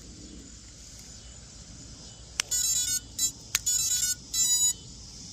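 Electronic beep tones at several pitches in four short runs, with a sharp click just before the first and another midway, like an FPV quad's startup tones as it is powered up for flight. A steady high chirring of insects runs underneath.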